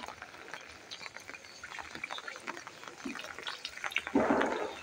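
Rain falling on a wet concrete rooftop, with scattered small splashes and drips as bare feet move through the puddles. About four seconds in, a louder rush of water lasts about half a second.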